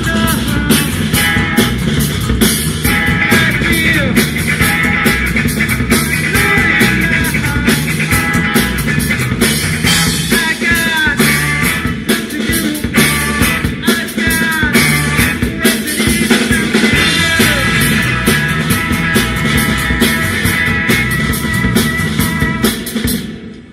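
Rock band playing at a sound check: electric guitar and drum kit, with steady drum hits. The music stops abruptly just before the end.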